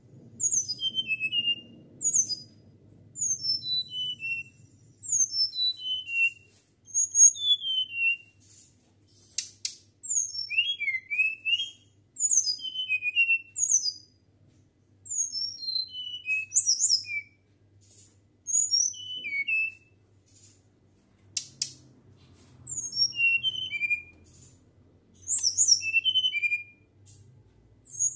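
A flycatcher (sikatan) singing in a natural flute-like voice: phrase after phrase of high, clear whistled notes that slide downward, each phrase about a second long with short pauses between. Two sharp clicks come partway through.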